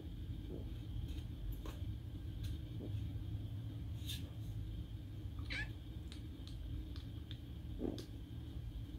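Two-month-old kitten giving a short, high mew about halfway through that falls in pitch, amid a few soft clicks and taps from the kittens' play fight, over a steady low hum.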